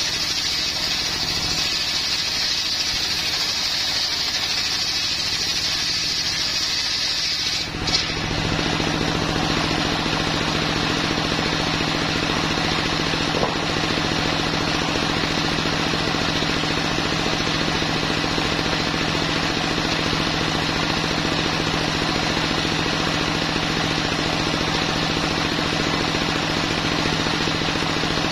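A homemade engine-driven circular saw bench ripping a timber plank, with a steady high hiss of the blade in the wood. About eight seconds in, the cut ends with a short knock. After that the engine and the free-spinning blade run on steadily without load.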